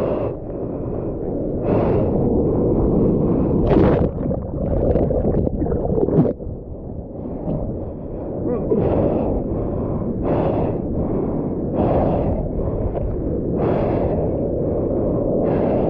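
Foaming whitewater churning and rushing around a waterproof action camera held at the surface, with short sharp sounds every one and a half to two seconds as the broken waves wash over it.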